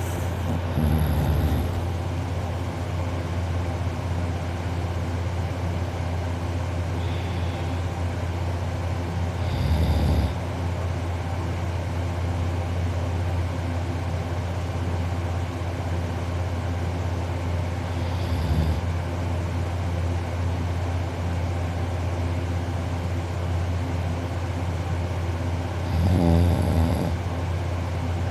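A man snoring in deep sleep: four loud snores about eight to nine seconds apart, over a steady low hum.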